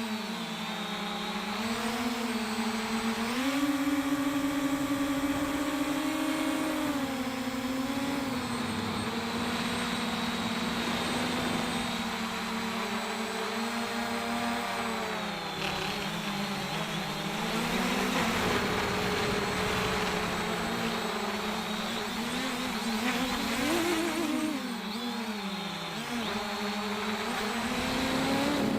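JJRC X1 quadcopter's motors and propellers whining in flight, the pitch wavering up and down constantly as the throttle changes, over a steady rush of air.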